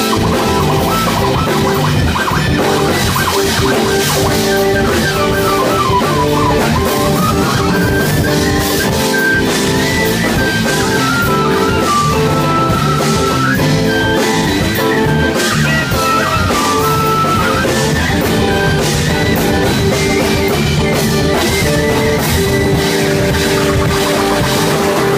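Live band playing rock music, with keyboards over a drum kit. A melody line steps up and falls back down in the middle part.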